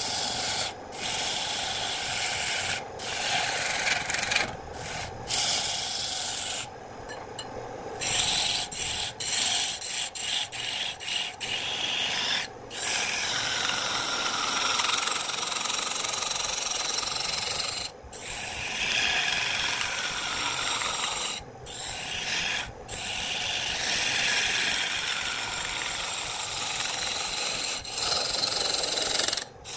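Lathe gouge cutting into a spinning blank of reddish wood: a continuous rough scraping and hissing cut as shavings spray off, broken by a few brief gaps.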